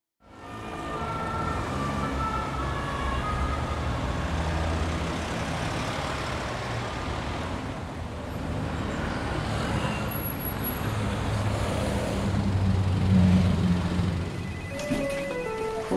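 City street traffic: a steady rumble of engines and tyres, with an emergency siren wailing over the first few seconds.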